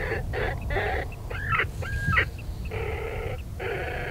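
A series of whining, yelping, dog-like animal cries, some short and some drawn out, with a brief gliding call and a thin whistled note near the middle. A steady low rumble of wind runs underneath.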